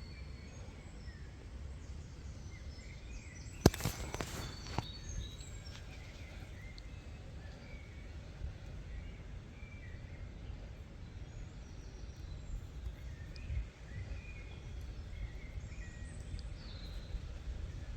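Wind rumbling on the microphone, with small birds chirping here and there in the background. About four seconds in there is a sharp click followed by a few softer knocks.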